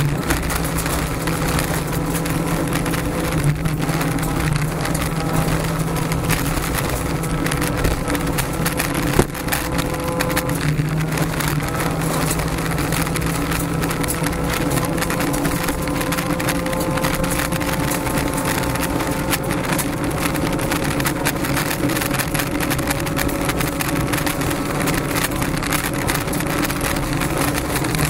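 Honda Civic rally car's 1.6-litre engine running hard at high revs, heard from inside the cabin, its pitch rising slowly over a long straight, with steady gravel and tyre noise underneath. A single sharp knock about nine seconds in.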